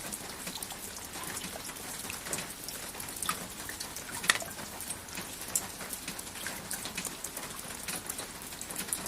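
Steady rainfall with individual drops pattering and ticking irregularly on a surface, some drops louder and sharper than others.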